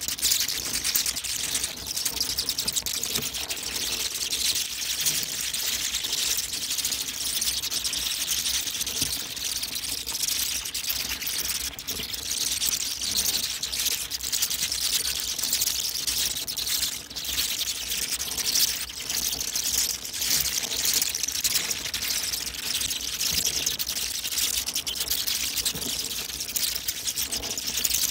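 A colony of bats screeching: a dense, unbroken chatter of high-pitched squeaks.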